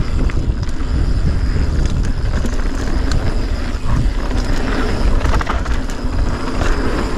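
Wind rushing over the action camera's microphone and knobby tyres rolling over a packed-dirt trail as a Polygon Siskiu mountain bike descends at speed, with scattered clicks and rattles from the bike and loose grit.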